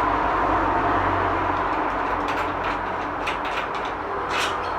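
Screw being undone from a security screen door lock: a run of light clicks and scrapes of the screwdriver and screw over a steady background hum.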